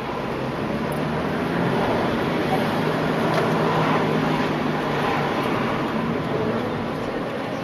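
Car driving on a city street, heard from inside the cabin: steady engine hum and road noise that swell a little for a few seconds in the middle.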